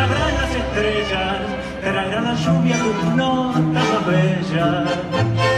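Tango orchestra playing live: bowed strings carry a wavering melody over sustained double bass notes.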